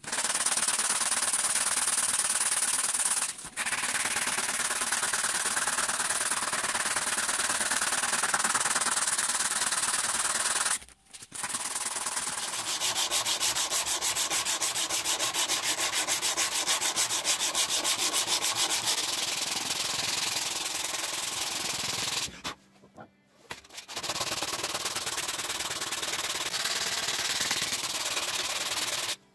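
Steel knife blade being hand-sanded with abrasive: fast, scratchy back-and-forth rubbing strokes, broken off briefly about a third of the way in and again about three quarters through.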